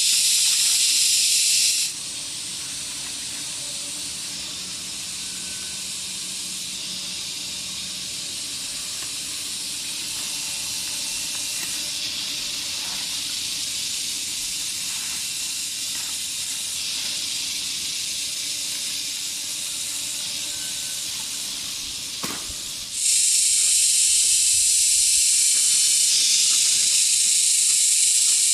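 A dense chorus of insects, a steady high-pitched buzzing hiss with no break in it. It drops noticeably about two seconds in and comes back at full strength near the end, just after a single sharp click.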